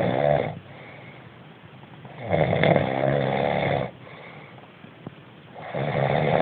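Loud snoring in a slow, even rhythm. One snore tails off just after the start, a full snore of under two seconds comes about two seconds in, and the next begins near the end.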